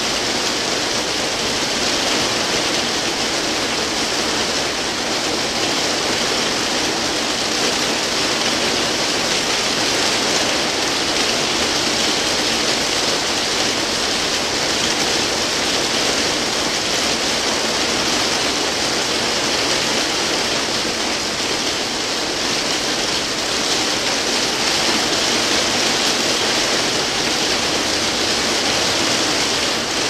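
Heavy rain hitting a roof: a steady, dense hiss with no single drops standing out and no let-up.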